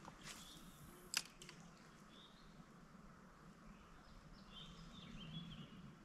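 A single sharp click about a second in from the spinning reel, as its bail snaps shut after the cast, with a soft swish just before it. Faint bird chirps follow over a quiet background.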